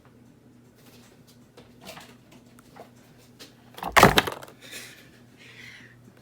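Handling noise: a few faint clicks, then a loud, short knock-like rustle about four seconds in, followed by a softer rustling scrape. A low steady electrical hum runs underneath.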